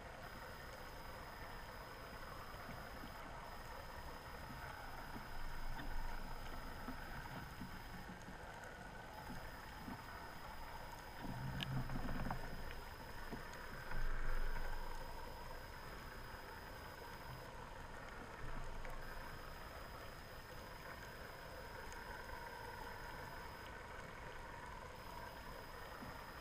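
Muffled underwater noise from a camera in its housing: a steady hiss with a thin high whine, and a few low bumps and swells about 6, 12 and 14 seconds in.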